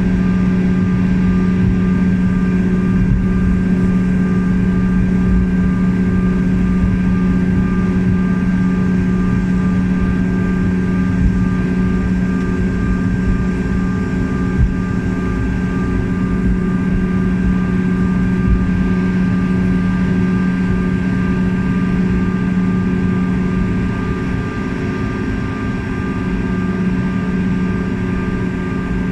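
Airliner cabin noise: a steady engine hum with several held tones over a constant low rumble. The main hum dips briefly near the end.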